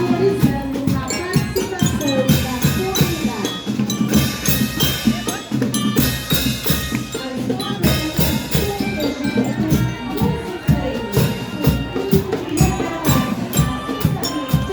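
Marching band playing: a steady beat of drums and other percussion with pitched instruments sounding over it.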